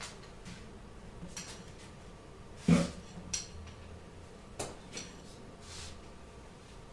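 Hand tools clinking and knocking against a small lawn-tractor wheel's rusty steel rim: several separate metallic knocks, the loudest a little under three seconds in.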